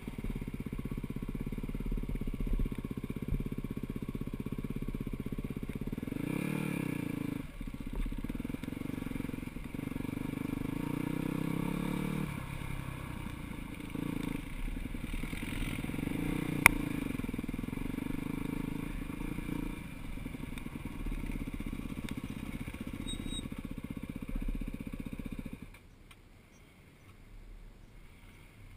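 Four-stroke dirt bike engine heard on board while it is ridden, the revs rising and falling, with a single sharp click about two-thirds of the way through. Near the end the engine sound drops off sharply to a much quieter level.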